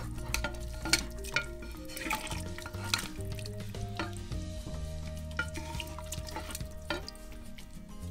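Metal fork and serving spoon clinking and scraping against a ceramic plate and the cast-iron kazan as braised beef tails are served out, over background music with a steady bass.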